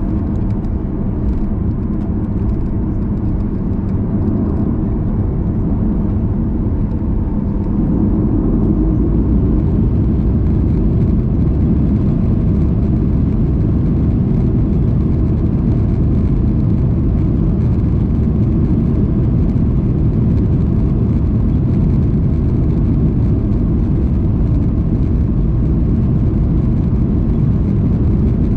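Boeing 737-800 airliner noise, engines and airflow: a steady low rumble that steps up louder about eight seconds in and then holds.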